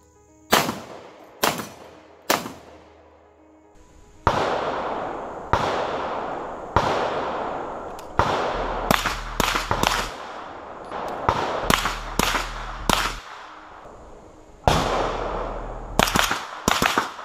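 Gunshots: three sharp handgun shots about a second apart, then a run of shots from a 9mm CZ Scorpion EVO. The EVO shots come singly at first, then in quick doubles and short strings, each with a long echoing tail. Background music plays underneath.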